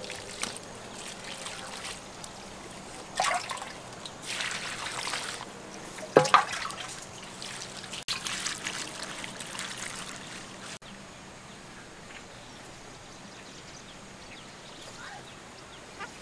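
Water poured from a hand dipper over vegetables in a woven basket, splashing and trickling through in several uneven pours, the loudest about six seconds in; fainter, steadier background noise follows.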